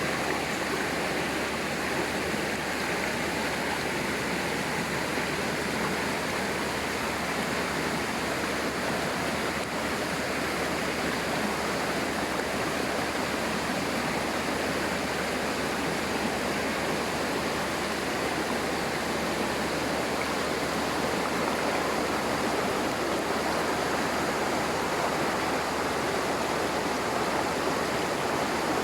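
Waterfall pouring steadily into its pool: a constant, even rush of water.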